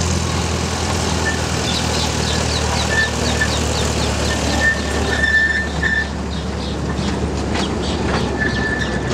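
Park toy train running past close by: a steady low hum from the locomotive, with the wheels clicking over the rail joints in the second half.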